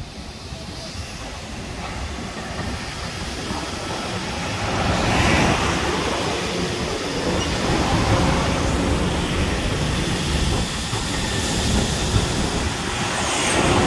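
Long Island Rail Road electric multiple-unit train approaching and rolling past close by. The rumble of its wheels on the rails grows louder over the first few seconds, then holds steady as the cars go by.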